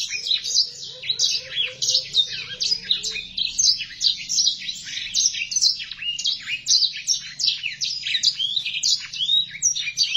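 Blackthroat (black-throated canary) singing a long, fast, unbroken warbling song of rapid chirps, sweeps and trills.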